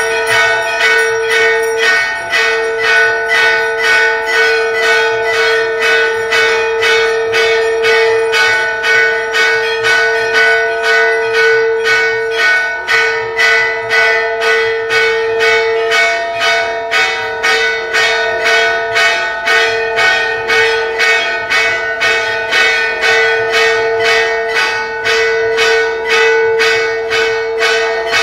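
Metal temple bells rung continuously for the aarti, struck over and over in an even rhythm so that the ringing tone never dies away.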